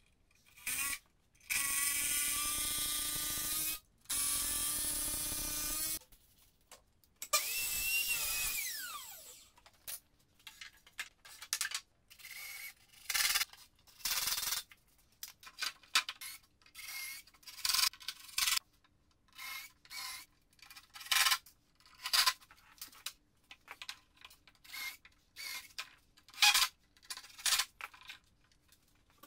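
A handheld power tool runs with a steady whine in two bursts of a couple of seconds. A third burst winds down with a falling whine, and then come many short, irregular bursts of tool noise.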